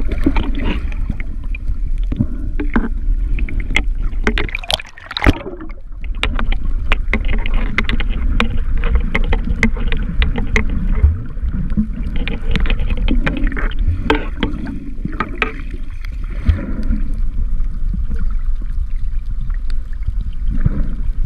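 Water rushing and rumbling around a submerged camera, with many sharp clicks and crackles throughout and a brief drop in level about five seconds in.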